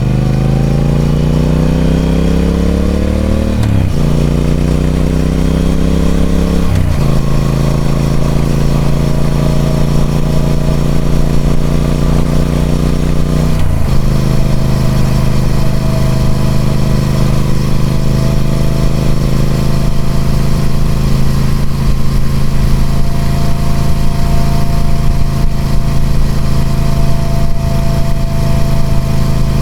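Triumph Speed Twin 1200's parallel-twin engine through its stock exhaust, pulling up through the gears. The pitch climbs and drops sharply at each of three upshifts, about four, seven and fourteen seconds in, then holds a near-steady cruise.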